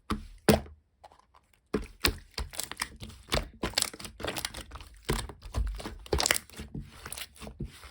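Hands squishing and stretching clear slime, making irregular crackling clicks and pops, with a brief pause about a second in.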